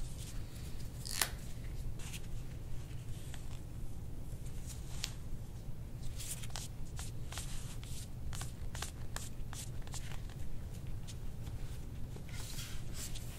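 Hands rubbing and pressing over a patient's back and clothing, making rustling and short scratchy clicks, thickest around the middle, as the chiropractor feels out stiff spots in the upper back.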